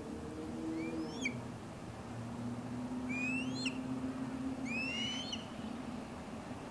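Osprey calling: three short runs of sharply rising whistled chirps, about a second, three and a half seconds and five seconds in, over a steady low hum.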